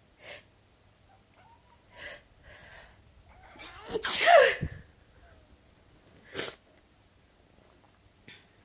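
A person sneezes once, loudly, about four seconds in, a noisy build-up ending in a falling pitched 'choo'. Short sharp puffs of breath come before and after it.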